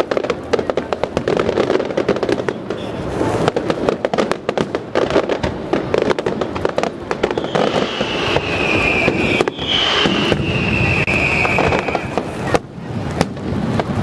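Fireworks display: a dense run of bangs and crackling from aerial shells bursting. In the second half come two long high whistles, each falling slightly in pitch.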